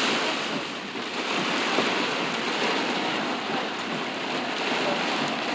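Heavy rain falling steadily, an even hiss of many drops with no single drop standing out.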